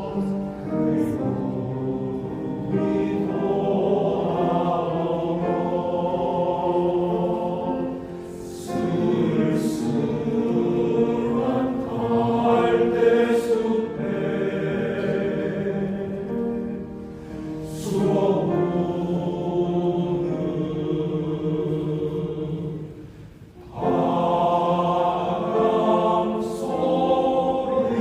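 Male choir singing in sustained harmony, phrase after phrase with short breaks between, the longest dip about 23 seconds in.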